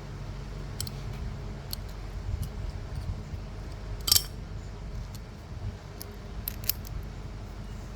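Small metal parts and tools clinking and tapping against each other, a few sharp clicks spread out with the loudest about four seconds in, over a steady low hum.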